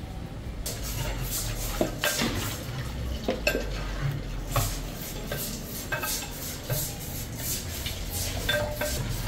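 Serving utensils scraping and clinking against a large aluminium cooking pot and clay pots as mutton curry is scooped out and portioned: a string of short irregular clinks and scrapes over a steady low hum.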